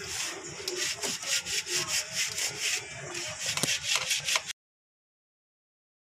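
Hand scrubbing of a table-fan part: quick repeated rubbing strokes, several a second. The sound cuts off suddenly about four and a half seconds in.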